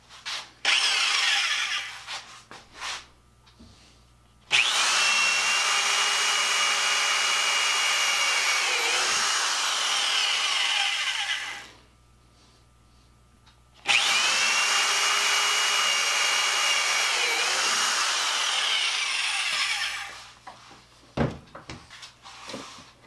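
Corded electric drill running a freshly sharpened twist-drill pilot bit into a wooden test block: a short burst about a second in, then two runs of about seven and six seconds. The motor's whine holds steady and dips briefly in pitch partway through each run.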